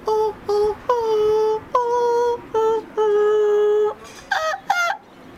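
A high voice singing a run of held notes, all close to one pitch, each scooping slightly down as it starts. About four seconds in it stops, and two short, wavering higher cries follow.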